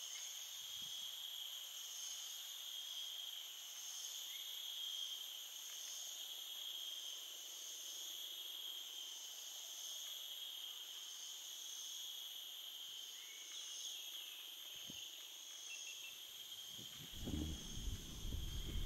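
Steady chorus of insects, several high-pitched drones held unbroken and layered over one another. A rustle of movement comes in near the end.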